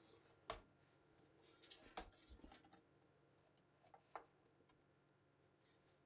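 Near silence broken by three faint, sharp clicks and a few softer ticks from computer parts being handled.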